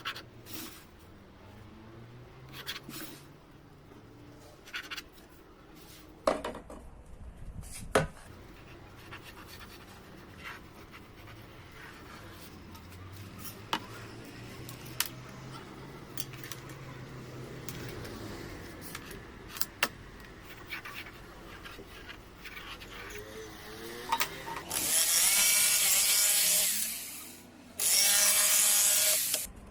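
Scattered knocks and taps of wood pieces being handled, then a power drill runs twice near the end, a couple of seconds each, its motor spinning up at the start of the first run.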